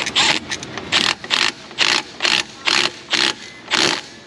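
Cordless impact wrench hammering in short bursts, about two or three a second, as the trigger is pulsed to drive in the 13 mm bolt that holds the A/C line to the receiver dryer.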